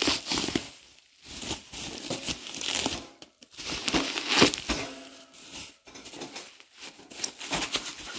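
Plastic bubble wrap crinkling and crackling as it is pulled by hand off a chrome desk-fan grille, in uneven bursts, loudest a little past the middle.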